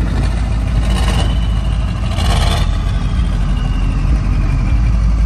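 Heavy vehicle engine idling with a steady deep rumble, with two short rushes of noise about one and two seconds in.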